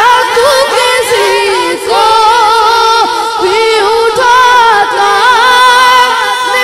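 A boy singing a naat into a microphone without instruments: one high voice holding long notes that bend and waver between phrases.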